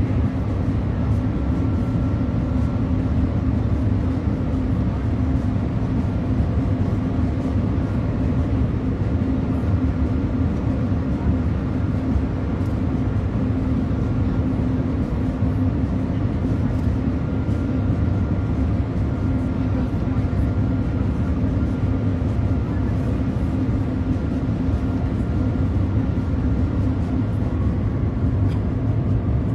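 Steady low rumble and rushing noise inside the cabin of the Shanghai maglev train cruising at about 415 km/h.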